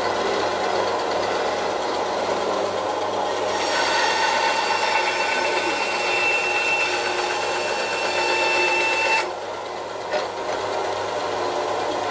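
Japanese 100 V, 280 W three-wheel benchtop woodworking band saw (model SWB-250) running steadily. From about four seconds in, the blade cuts through a strip of wood for about five seconds, adding a brighter rasp and a high whine, then it runs free again. The cut goes very smoothly.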